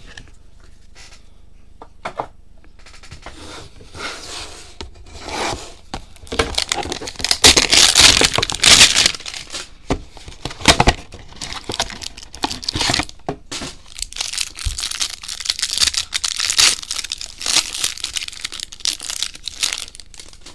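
Trading card pack wrapper being crinkled and torn open by hand. It begins a few seconds in and comes in uneven bursts, loudest a little before the middle.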